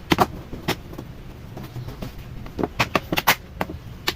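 Sharp plastic clicks and taps, a few near the start and a quick run in the second half, as the laptop's plastic bottom cover is pressed and snapped back into place.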